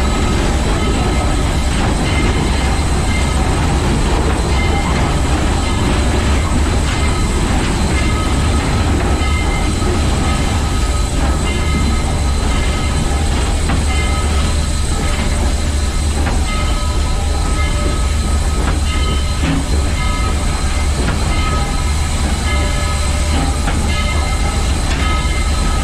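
Cab noise of Southern 4501, a 2-8-2 Mikado steam locomotive, under way: a loud, steady heavy rumble with rattling, and brief high squeals now and then.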